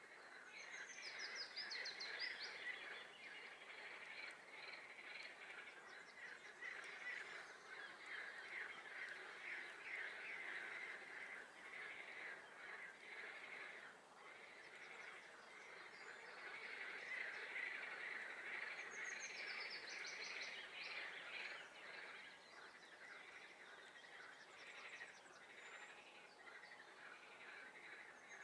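A dense chorus of frogs calling in a swamp, many rapid pulsed croaks overlapping without a break. A songbird sings short high phrases over it near the start, again about two-thirds of the way through, and at the end.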